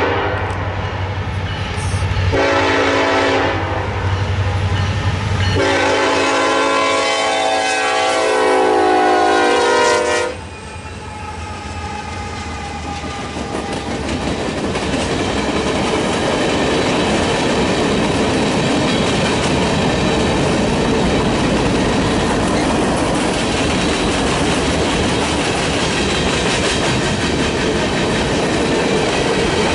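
Diesel freight locomotive's air horn blowing for a grade crossing: the tail of one blast, then two long blasts starting about two and six seconds in, the second dropping in pitch as the locomotive passes. Then the locomotives and a string of boxcars roll by with a steady rumble and wheel clatter.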